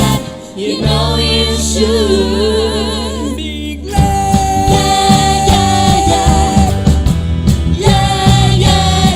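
Live band music with a singer: a held vocal note with vibrato over a sustained chord, then the full band comes in about four seconds in with drums and a long held note.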